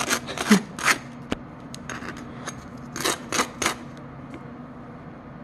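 A table knife scraping cold, hard butter across the crusty face of a toasted bagel: a quick run of about four scraping strokes, then three more about three seconds in.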